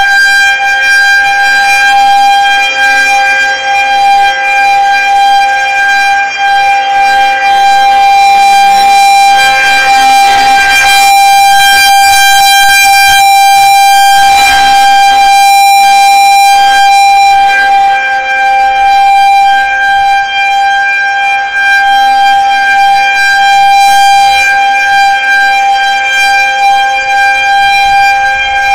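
Federal Signal 2001-130 electromechanical outdoor warning siren sounding a tornado warning, holding one loud, steady tone at full speed.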